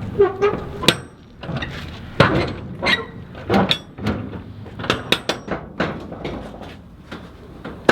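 Metal clanks and knocks, a dozen or so sharp strikes at irregular intervals, as the locking bars and latches of a steel shipping container's doors are worked open.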